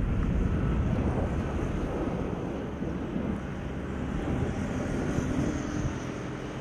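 Wind buffeting an outdoor microphone: a loud, uneven low rumble over general open-air ambience.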